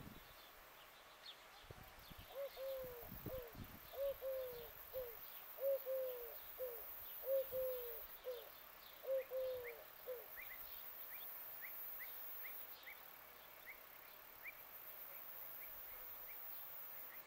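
A dove cooing in repeated three-note phrases, five phrases in a row, then falling silent. Afterwards a small bird gives short, thin chirps.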